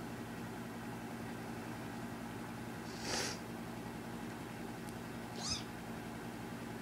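Kitten mewing twice, two short high-pitched cries a couple of seconds apart, over a steady low hum.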